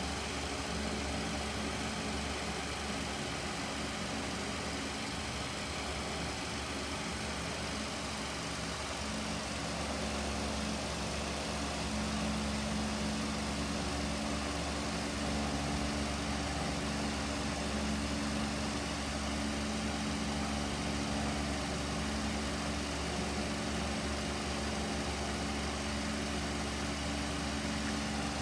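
Barn fan running steadily: a constant motor hum over an even rush of moving air.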